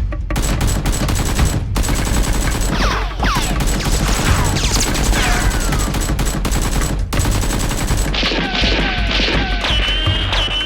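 Gunfire sound effects: rapid, continuous volleys of automatic shots, with a few whistling tones that fall in pitch partway through.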